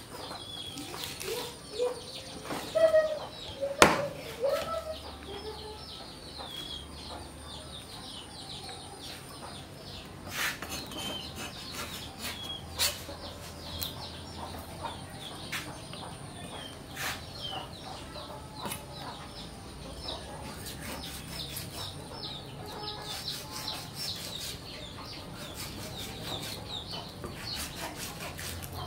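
Chickens clucking, with many short high chirps throughout. A cleaver knocks on a wooden chopping block a few times, most loudly about four seconds in, while fish fillets are being skinned.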